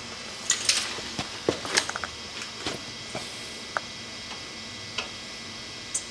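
Scattered metallic clicks and taps of a wrench on a brake hard-line fitting at a caliper: a cluster of small clicks in the first few seconds, then a few single ticks spaced about a second apart.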